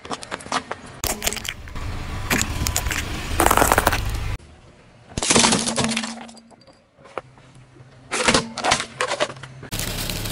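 A car tyre rolling slowly over small hard plastic toys and candy, crushing them with clusters of sharp cracks and snaps over a low rumble. The sound changes abruptly twice as the scene moves from one crushed object to the next.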